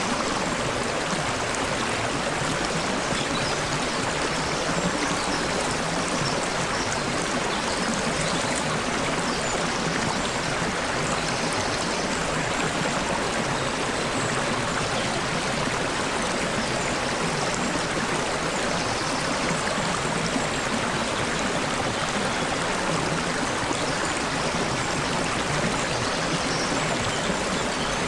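Babbling water of a flowing stream, running steadily.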